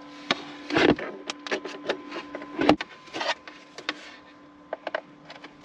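Cookware and food packets being handled: scattered clicks, knocks and rustles over a steady electrical hum.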